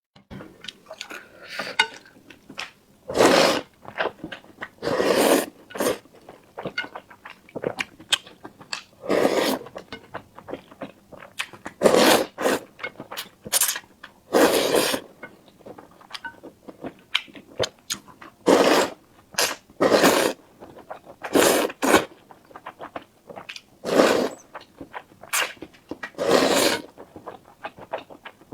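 Close-miked eating sounds: chewing with small wet mouth clicks, broken by louder noisy bites or slurps every second or two.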